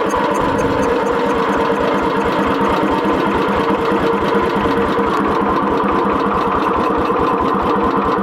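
Small garden-tractor engine being cranked over by its starter, turning over steadily and fast but not catching.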